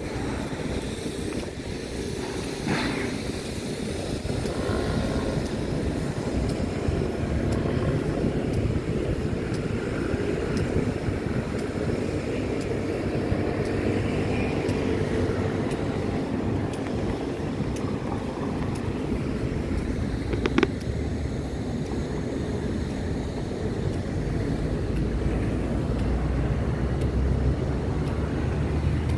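Steady low rumble of city traffic and wind, with one brief sharp click about twenty seconds in.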